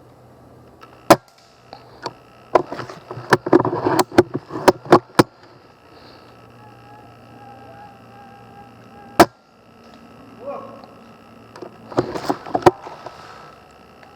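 Airsoft guns firing: sharp single cracks and quick runs of shots, a cluster about three to five seconds in and another near the end.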